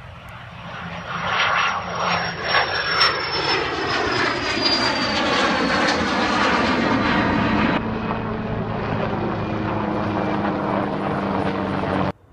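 Airliner passing close overhead: engine noise swells within the first two seconds, and a high engine whine slides down in pitch as the aircraft goes by. The sound cuts off suddenly near the end.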